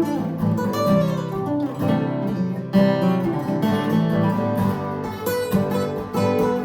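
Acoustic guitar playing an instrumental passage, strummed chords with picked notes.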